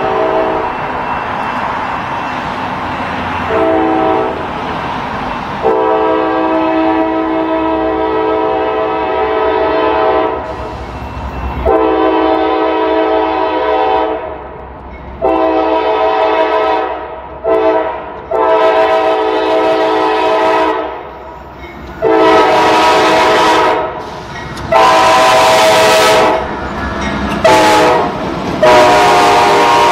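CSX freight locomotive's multi-chime air horn sounding a series of long and short blasts at a grade crossing, over the low rumble of the diesel locomotives. The last few blasts are the loudest as the lead unit passes close.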